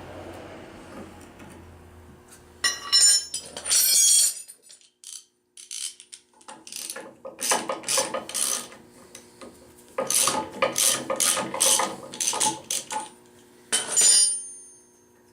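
Wrench and metal engine parts clinking and rattling as a rocker arm is unbolted and lifted off a Fuller & Johnson hit-and-miss engine, in several bursts of quick metallic clicks.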